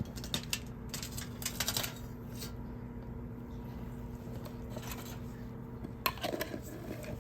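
Faint scattered clicks and light rustling of kitchen items being handled, with a sharper click a little after six seconds, over a steady electrical hum.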